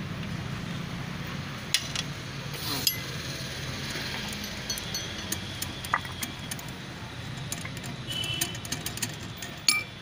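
Metal clinks and taps as the cover of a bitumen extractor centrifuge is unscrewed and lifted off, thickening to a run of sharp clicks in the second half, over a steady low hum.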